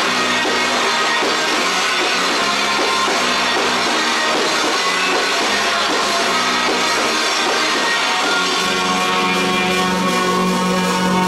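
A rock band playing live, with a drum kit and guitars, loud and dense; near the end a low note comes in and is held.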